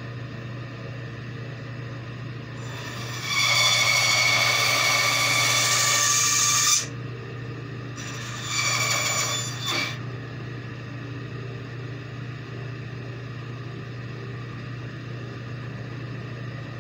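Bandsaw running with a steady hum, its blade cutting through a wooden carving blank twice: one cut of about three and a half seconds a few seconds in, then a shorter cut of about a second.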